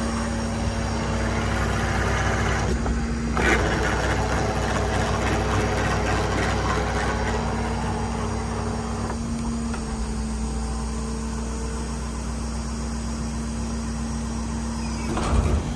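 Ford F-550's 6.7 L Power Stroke V8 diesel idling with a steady hum, while the Stellar 5521 crane is worked hydraulically to lower its boom. A louder rushing, whirring sound comes in sharply about three seconds in and fades about nine seconds in.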